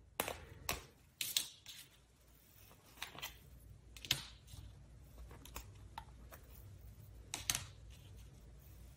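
Thin metal alphabet dies being picked up and set down on cardstock: scattered light clicks and taps, about ten of them spread irregularly.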